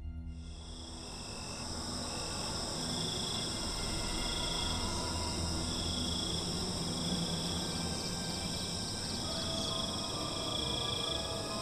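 Crickets trilling at night, several steady high-pitched trills at once, with one lower trill swelling in and out every second or two.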